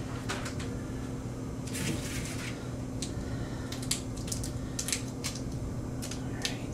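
Light rustling and scattered small clicks of packaging and a coiled cable being handled, including a longer rustle about two seconds in, over a steady low hum.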